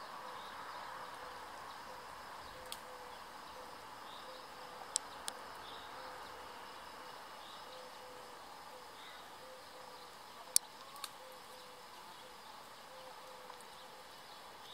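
Quiet natural ambience: a faint steady hum and hiss with soft, short distant bird chirps, and a handful of sharp clicks, the loudest about ten and a half seconds in.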